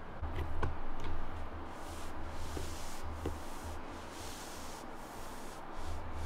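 A hand rubbing and sliding over a wood-grain floor, a dry hissing scuff, with a few light clicks and low handling bumps in the first seconds.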